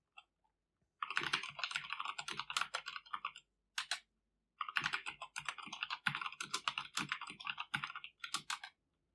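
Typing on a computer keyboard: a quick run of keystrokes from about a second in, a short pause with a single tap, then a second run until near the end.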